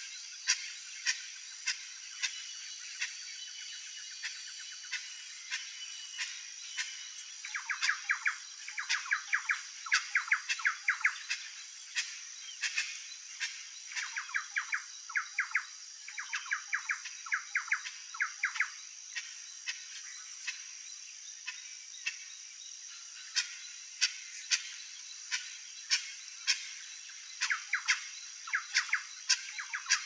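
Outdoor nature ambience: a steady high-pitched hum of thin tones with scattered sharp ticks, and several bouts of fast repeated chirps, about eight to ten a second, in the middle and again near the end.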